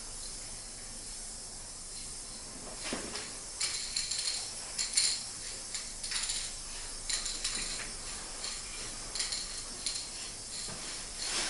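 Aerosol spray paint can hissing steadily. From about three seconds in it breaks into short spurts mixed with metallic clattering, the can's mixing ball rattling inside it.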